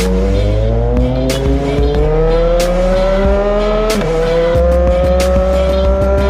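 CFMoto 675NK's inline three-cylinder engine pulling hard under acceleration, its pitch climbing steadily. It drops sharply at an upshift about four seconds in, then climbs again.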